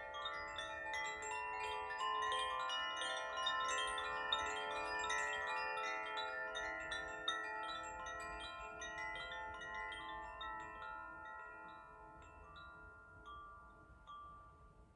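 French-made handheld wind chimes ringing: many tuned notes struck close together in a dense, overlapping tinkle, then fewer and fewer strikes after about ten seconds as the ringing fades out toward near silence at the end.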